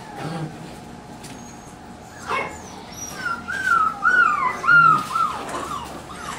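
Standard poodle puppies whining: a short yelp about two seconds in, then a run of quick, high, rising-and-falling whines lasting a couple of seconds.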